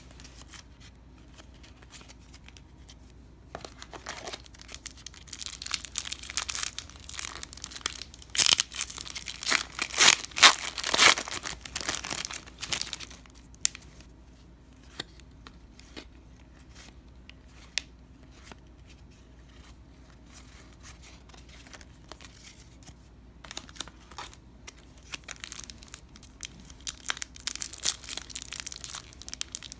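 Foil wrapper of a baseball card pack being torn open and crinkled, with a long spell of tearing and crackling in the first half and another building near the end. Scattered light rustles and clicks fall between them.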